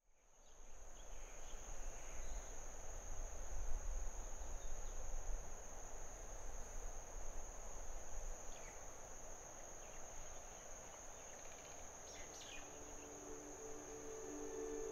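Steady high-pitched drone of an insect chorus, with a low rumble in the first half and a few short chirps. Soft sustained music fades in near the end.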